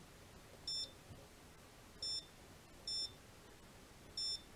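Four short, high-pitched beeps from the Saeco Incanto S-Class Sirius espresso machine's control panel, one for each press of its menu button while scrolling through the settings, at uneven intervals.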